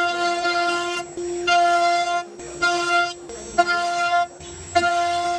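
CNC router spindle whining at a steady pitch while its bit carves a relief pattern into a wooden board. The whine swells and drops back about once a second as the bit works through the cut, with a hiss of cutting between.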